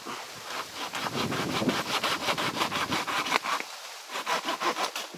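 Hand saw cutting through a mango branch, in quick rasping back-and-forth strokes, several a second, with a brief pause about three and a half seconds in before a few more strokes.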